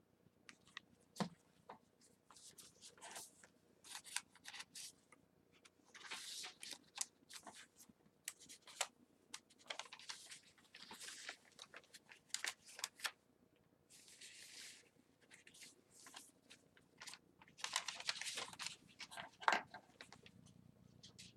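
Paper rustling and crinkling as the pages of a handmade paper journal and the tags tucked into it are handled and turned, in irregular short bursts with light taps, one sharper crinkle near the end.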